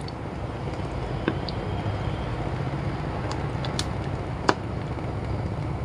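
A steady low rumble from the stove and the boiling pot, with a few light clicks as a plastic ladle stirs coconut-milk banana kolak in a clay pot.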